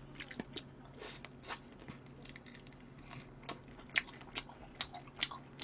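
Close-miked chewing and biting of spicy chicken feet: a quiet, irregular scatter of small clicks and crunches.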